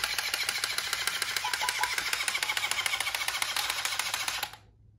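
Poo-Chi robotic dog's motor and gears running with rapid, even clicking, about ten clicks a second, cutting off suddenly near the end. The toy has what the owner calls the relay switch issue.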